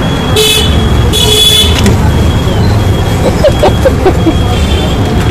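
Two horn toots over a steady traffic rumble, a short one about half a second in and a longer one about a second in.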